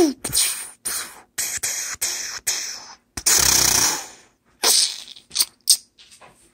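A child making mouth-made gunfire and explosion noises for a toy-soldier battle: a string of hissing bursts, the longest a bit past three seconds in, then a few shorter, fainter ones.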